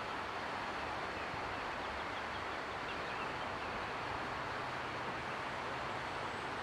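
Steady rushing of a river in flood, an even noise with no breaks or changes.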